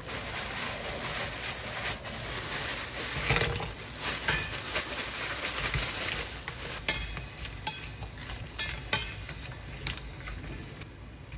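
Food sizzling as it fries in a hot pan while being stirred. A few sharp clinks of a utensil against the pan come in the second half, and the sizzle fades toward the end.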